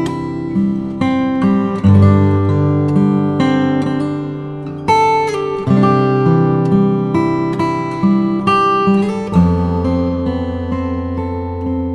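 Acoustic guitar music, plucked notes and strummed chords changing about once a second.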